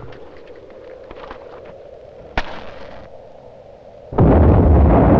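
A single sharp click about two and a half seconds in, then a sudden loud explosion about four seconds in that carries on as a heavy, continuous rumble. It is a film sound effect standing in for the lighter-fluid-soaked barbecue going up.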